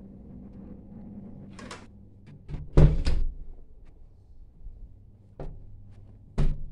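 A door being handled and shut: a cluster of heavy thuds about three seconds in, then two sharper knocks near the end, over a steady low hum.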